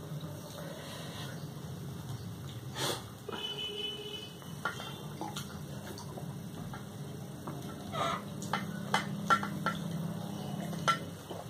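Eating at the table: fingers mixing rice on plates and chewing, then a man drinking water from a glass, with a run of short gulping clicks near the end. A steady low hum runs underneath.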